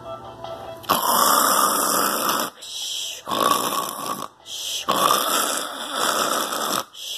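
A man snoring loudly, in a run of long rasping snores about a second each with short gaps between them. The snoring starts about a second in.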